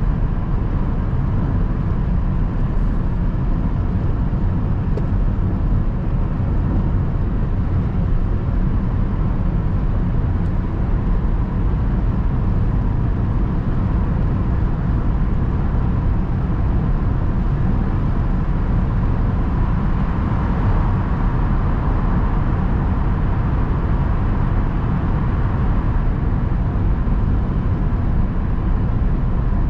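A car being driven, with a steady, unbroken low rumble of engine, tyre and road noise.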